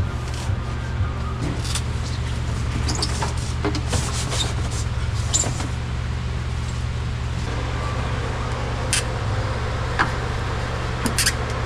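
Steady low mechanical hum, like a motor or engine running, with scattered light clicks and taps over it; it cuts off abruptly at the end.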